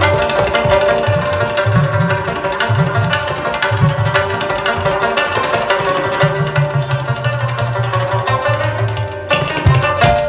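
Local folk music with a hand-drum rhythm under plucked and melodic instruments, a steady beat that breaks briefly near the end.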